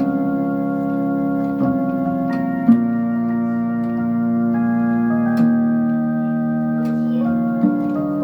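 Yamaha PSR electronic keyboard on an organ voice, playing a slow hymn in three voices: held chords that change every second or two, with a few faint clicks at some chord changes.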